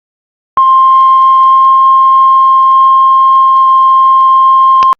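Heart monitor flatline: one long, steady, high beep tone held for about four seconds, signalling that the heartbeat has stopped. It starts about half a second in and cuts off suddenly near the end.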